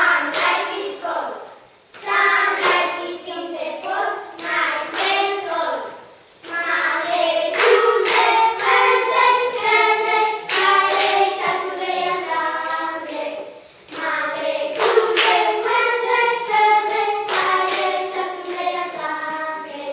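A group of children singing a song together in phrases with held notes, with hand claps in places.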